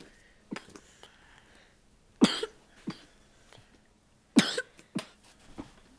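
A series of short, sharp coughs. The two strongest come a little after two seconds and around four and a half seconds, each followed by one or two smaller coughs.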